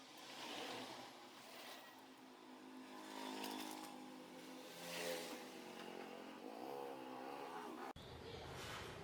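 A small motor running, its pitch wavering up and down, with several swells of hissing, scraping noise.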